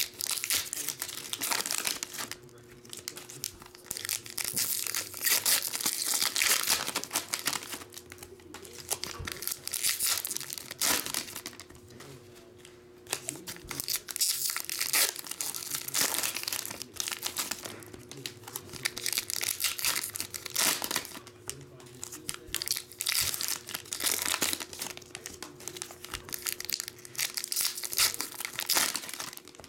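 Foil trading-card packs of Upper Deck Series 1 hockey cards being torn open and their wrappers crinkled by hand, in repeated bursts with short pauses between packs.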